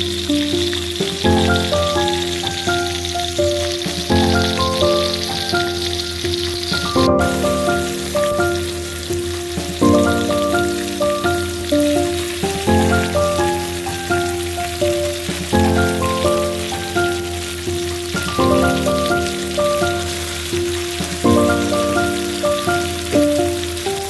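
Tomatoes and shallots sizzling in hot oil in a wok, under background music whose melodic phrase repeats about every three seconds.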